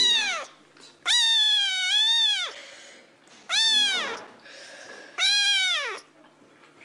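A domestic cat meowing four times, loud and insistent; the second meow is long and drawn out, and each call falls in pitch at its end.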